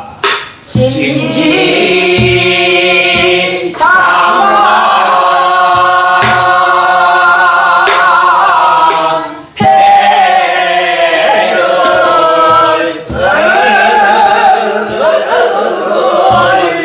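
A woman singing Namdo folk song in the southern Korean style, with long held notes that waver strongly in pitch and short breaks between phrases. She accompanies herself on a buk barrel drum, striking it with a wooden stick a few times at slow, sparse intervals.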